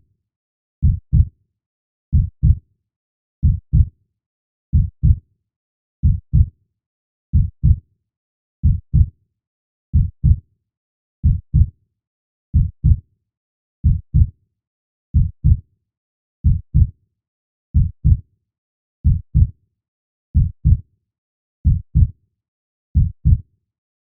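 Slow heartbeat, a steady lub-dub double beat repeating about every 1.3 seconds (around 45 beats a minute), deep thumps with silence between each pair.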